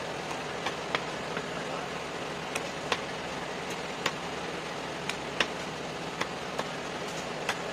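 Heavy knife cutting a rohu into steaks, the blade knocking sharply on the wooden chopping block about ten times at uneven intervals, over a steady background hiss.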